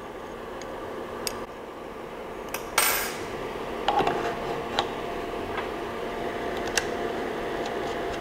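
Metal clicks and clinks of an Allen key and the resin printer's metal build plate being handled and fitted onto the Z-axis arm, with a louder scraping clatter about three seconds in and scattered knocks after it.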